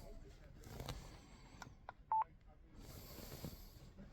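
Yaesu FTX-1F transceiver giving a single short electronic beep about two seconds in, with a few faint clicks just before it, as its controls are operated.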